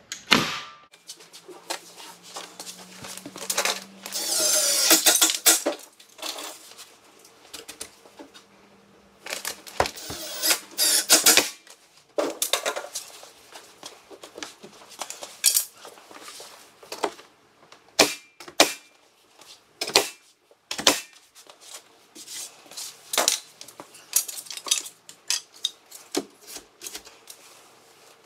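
Window trim being installed: a pneumatic nail gun firing and wooden casing boards being knocked and handled, heard as a long run of sharp, irregular clicks and knocks. A longer hissing scrape comes about four seconds in.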